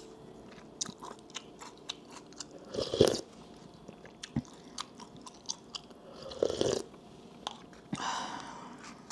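Close-up chewing of chewy cow skin lining (sugure) and food: many small wet clicks and smacks, with a few louder chews.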